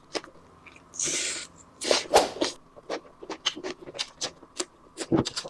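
Close-miked eating sounds: a run of short wet clicks and smacks, with a brief hiss about a second in.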